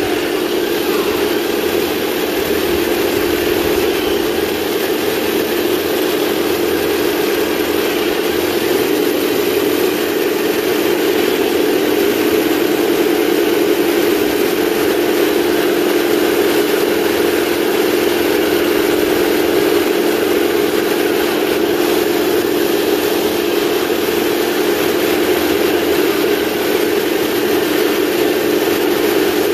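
1/16 scale radio-controlled model tanks driving: a steady engine-like drone with the whine of their electric drive gearboxes and the running of their tracks on pavement.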